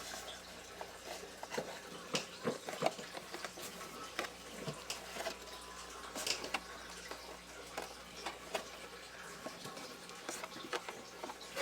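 Metal cup hook being twisted by hand into a wooden shelf: irregular small clicks, creaks and scrapes of metal on wood, some louder than others.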